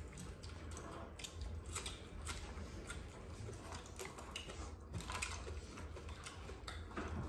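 People eating at a table: irregular small clicks and taps of chewing and of food being picked off grilled skewers, over a low steady hum.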